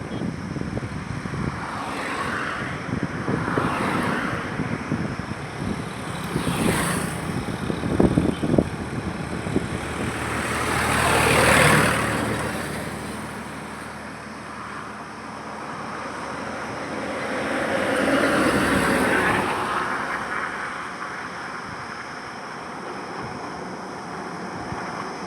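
Road traffic with vehicles passing one after another, each swelling up and fading away over the steady hum of the road. The loudest pass comes about halfway through and another about three quarters through, with a few brief knocks a third of the way in.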